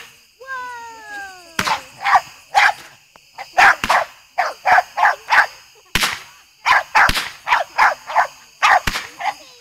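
A dog barking over and over in quick runs, mixed with several sharp firework bangs. A falling whistle sounds about half a second in.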